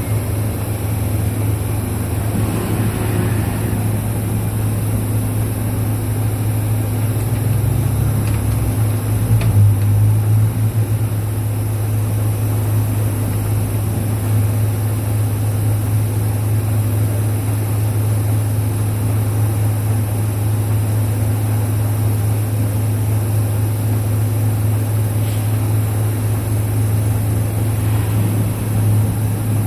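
Diesel engine of a 2005 Isuzu Erga KL-LV834L1 city bus idling steadily while standing at a stop, heard from inside the cabin, with a brief swell about a third of the way in.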